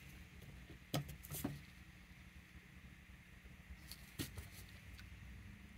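Faint handling noise from a small nail brush and gloved hands: a few light clicks and taps, about a second in and again near four seconds, over quiet room tone.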